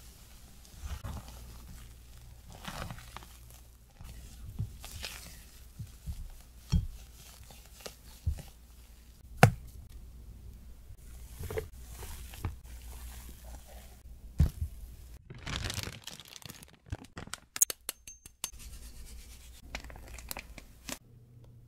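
Silicone spatula folding flour into ladyfinger batter in a glass bowl: soft scrapes and swishes with scattered sharp taps against the bowl, the loudest about halfway through. Near the end comes a crackly, crinkling stretch, like a plastic piping bag being handled.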